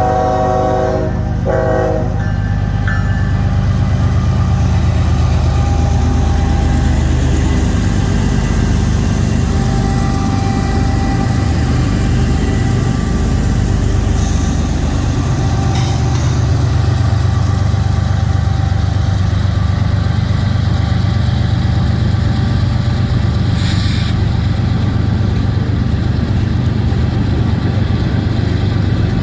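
A freight train's lead GE ES44AC diesel locomotives, with their twelve-cylinder GEVO engines: the multi-tone horn chord cuts off about two seconds in, then a loud steady low diesel rumble with wheel and rail noise as the units pass.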